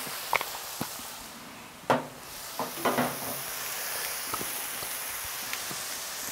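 Beef burger patties sizzling steadily on a hot plancha griddle plate, with a sharp knock about two seconds in.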